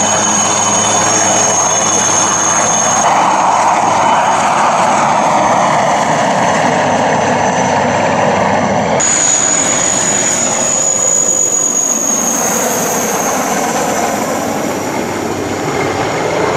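Military IAR 330 Puma helicopter flying past: a high steady turbine whine over the rushing noise of its rotors and engines. The sound shifts abruptly a few seconds in and again about halfway, where the footage is cut.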